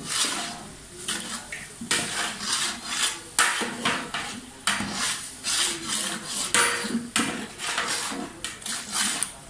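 Metal ladle scraping and clinking against the side and bottom of a large aluminium pot while stirring a wet biryani mixture: repeated irregular strokes, about one or two a second.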